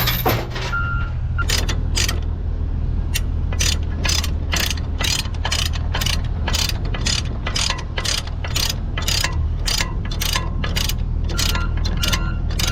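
Heavy diesel engine running at a steady idle, with sharp clicks repeating evenly about twice a second over it.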